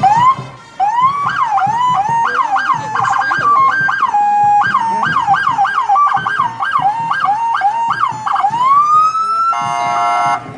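Police car's electronic siren sounding up close and loud, running through quick rising and falling yelps about twice a second, then one long rising wail. It ends with a short buzzing horn blast that cuts off suddenly.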